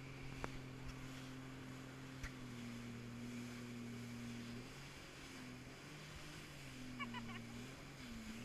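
Jet ski engine running under way over the rush of water from the wake. Its pitch holds steady, then dips and recovers a few times in the second half as the throttle is eased.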